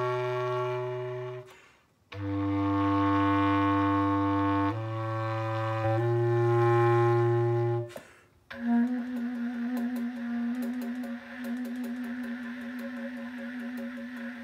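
Bass clarinet playing long, held low notes, with a short breath break about two seconds in and a change of note every second or two. It stops about eight seconds in, and a quieter steady held tone with light clicks follows.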